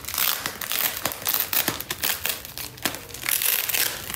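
Foam packaging wrap crinkling and rustling as it is pulled and crumpled off a power supply unit, with a dense run of small crackles and clicks.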